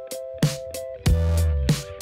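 Background music with a steady beat: an electronic track of sharp drum hits over deep bass notes and held tones.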